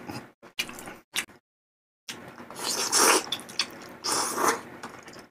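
Mouth sounds of eating: soft wet chewing clicks and smacks, then after half a second of silence, loud slurps of malatang broth from a spoon, the strongest about three and about four seconds in.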